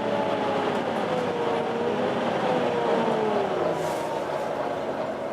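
Volvo B9TL double-decker bus running, a whine falling slowly in pitch over the first three seconds or so, over a steady rush of noise.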